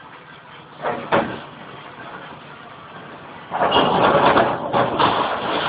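A tracked excavator rolling over down a rocky slope: a short knock about a second in, then a loud, noisy crashing of metal and rock with several heavy hits, starting about three and a half seconds in.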